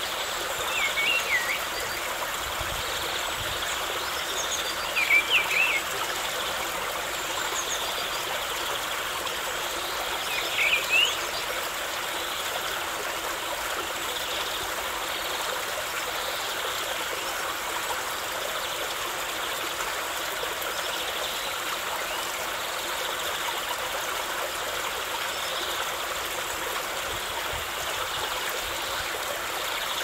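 Steady rush of running water with birds calling over it: three short chirping phrases about one, five and ten seconds in, and fainter high calls in between.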